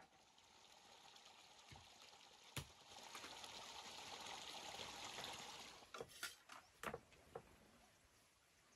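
A soft rush of running water swells and fades over several seconds, followed by a handful of sharp knocks of a knife and meat on a wooden cutting board.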